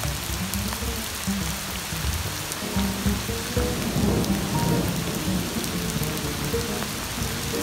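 Heavy rain pouring onto a paved street, with a low rumble of thunder about four seconds in. Jazz piano-trio music with bass plays softly under the rain.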